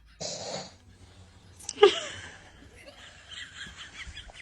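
Soft, stifled laughter and breathy sounds, with one sharp, brief vocal squeak just under two seconds in.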